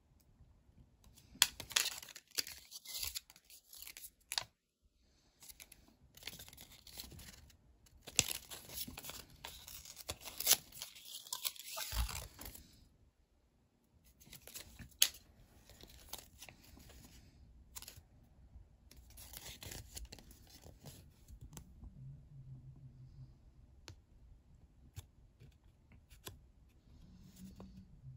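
Thin paper leaflet from a Yowie collectible being crinkled, torn and unrolled by hand. It comes in several bursts of crackling with sharp snaps, separated by short pauses, and turns to lighter handling in the last few seconds.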